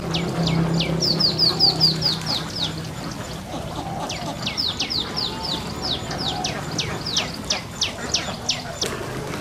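A small bird calling: two quick runs of high, thin notes, each sliding sharply downward, about four or five notes a second, with a short pause about three seconds in.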